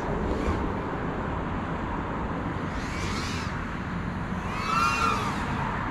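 Steady outdoor rumble and hiss, with FPV racing drone motors whining briefly about three seconds in and again near the end, the pitch bending as the throttle changes.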